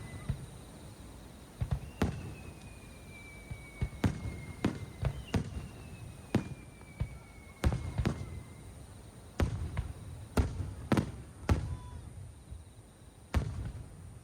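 Aerial fireworks bursting: a dozen or so sharp bangs at irregular spacing, each trailed by a low rumble. Long whistles from ascending shells slowly fall in pitch twice in the first half.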